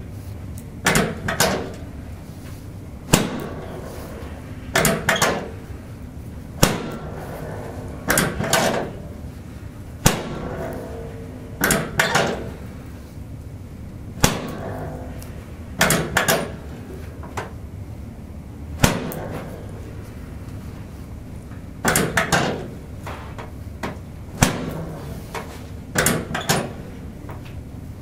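Repeated hand thrusts of a chiropractic adjustment on the mid back, each giving a sharp crack or knock, about one every one and a half to two seconds. Several come in quick doubles.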